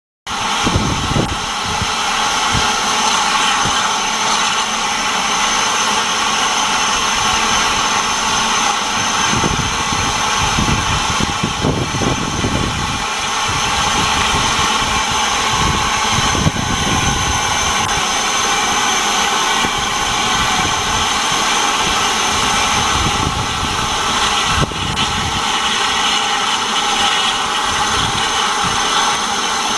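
Steady hiss of escaping steam from a standing Southern Railway Q class 0-6-0 steam locomotive, with a second steam locomotive coupled ahead. Irregular low rumbles come and go a few times.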